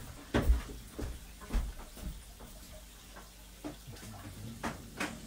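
A few sharp knocks and clunks, two of them with a dull thud, as parts are handled at the rim and lid frame of a large fish tank, over a steady low hum.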